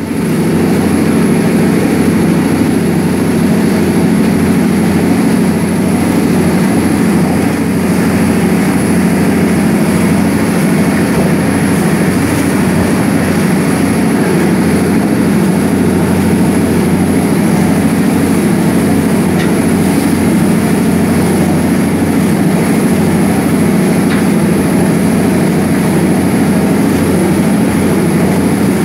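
Large river passenger boat's diesel engine running hard under way, a steady loud drone with the rush of the churning wake water.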